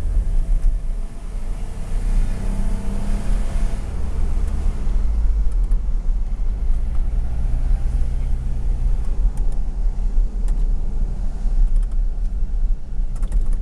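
Car engine and tyre rumble heard from inside the cabin while driving a winding hill road, with a strong low rumble throughout. The engine note rises and falls a few times as the car climbs and changes speed.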